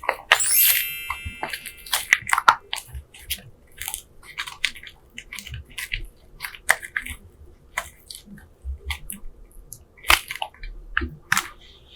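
Slime being squeezed and poked by hand, giving irregular sticky pops and crackles, busiest in the first few seconds and sparser later.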